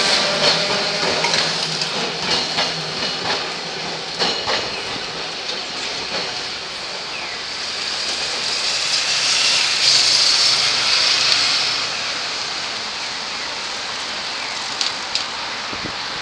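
Randen (Keifuku Electric Railroad) tram running on street-level track, its wheels clicking over the rail joints in the first few seconds. A rushing noise swells about ten seconds in and drops off a couple of seconds later.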